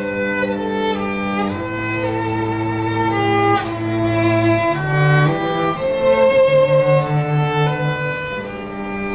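A live cello and violin duo playing a slow piece in long bowed notes, with the cello's low line underneath the violin's melody. A held cello note wavers with vibrato a little past the middle.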